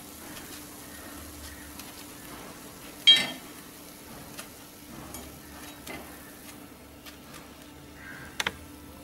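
Oil sizzling faintly in a cast-iron paniyaram pan as cooked paniyarams are picked out with a skewer, with small scattered clicks. A loud ringing metallic clink comes about three seconds in, and a quick double click near the end.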